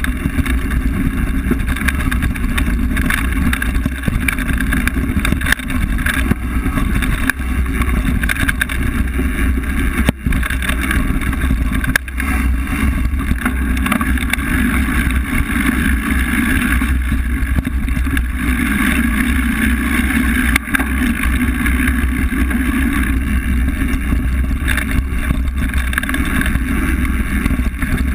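A mountain bike rolling fast down a dirt forest trail, heard from a camera on the bike: a steady, loud rumble of wind and tyre noise with rattles from the bumps. A few sharp knocks stand out, about ten, twelve and twenty seconds in.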